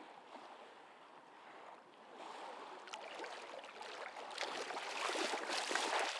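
Sea water sloshing and splashing around a person's legs as they wade through the shallows. It starts faint and grows louder from about two seconds in, with sharper splashes over the last couple of seconds.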